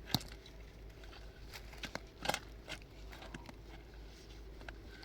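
A few irregular light knocks and clicks, the loudest just past the middle.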